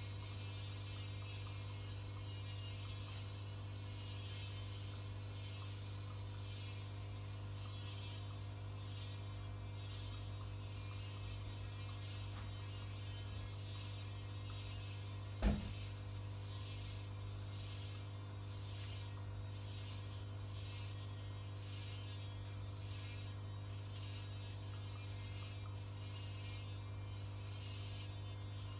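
Aquarium equipment running: a steady electrical hum with a fine hiss of air-stone bubbles above it. One sharp click comes about halfway through.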